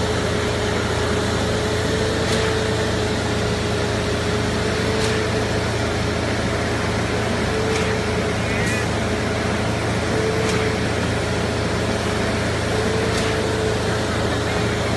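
Concrete boom pump trucks running steadily on their diesel engines, with a constant hum and a short sharp knock about every two and a half to three seconds as the pump cycles its stroke.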